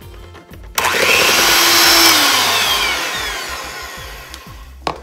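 Cuisinart 220-watt electric hand mixer switched on about a second in, its beaters whirring through softened cream cheese and butter. Its pitch sinks and it grows quieter over the next few seconds, with a sharp click near the end.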